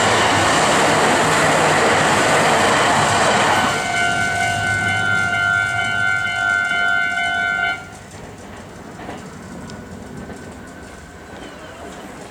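A Meitetsu 5000-series electric train rushes over a level crossing, its wheel noise ending about four seconds in, while the crossing's electronic warning bell rings on steadily. The bell stops about eight seconds in, the sign that the crossing is clearing after the train has gone.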